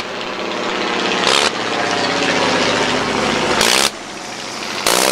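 Sopwith Camel replica's original 150-horsepower Gnome rotary engine in flight, being blipped on and off because it has no throttle, giving an on-and-off, almost flatulent sound. Three short, sharp bursts stand out, with the engine dropping back after them.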